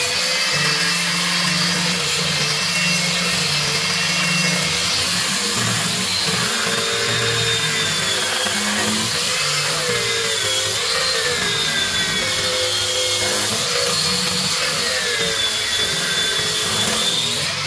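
Handheld electric sander with a sanding drum working the wood of a turning vessel spinning on a lathe: a steady abrasive rush over the motor's whine, which dips and recovers in pitch as the tool is pressed into the wood.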